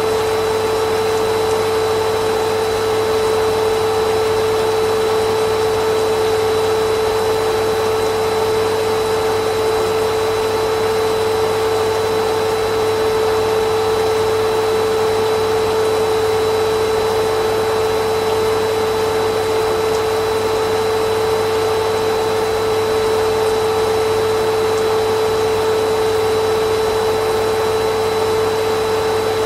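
Vacuum cleaner running steadily: an even motor hum with a strong steady whine, unchanging throughout.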